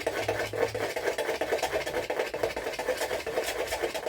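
Pancake batter being mixed in a bowl: a continuous, rapid, even clattering.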